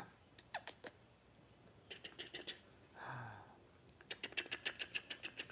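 Fingers scratching a puppy's fur, faint runs of rapid scratchy clicks, with a short breathy sound about three seconds in.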